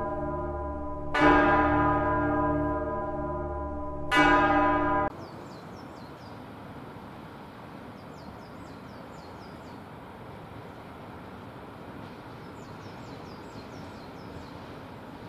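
A bell tolling slowly, struck about every three seconds, each stroke ringing on, until the ringing is cut off abruptly about five seconds in. Then a steady faint outdoor hiss with a few short high chirps.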